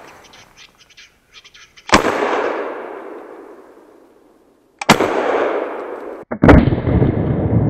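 Hunting gun fired three times at a capercaillie: sharp shots about two seconds in, three seconds later, and a second and a half after that, each followed by a long echo fading through the forest.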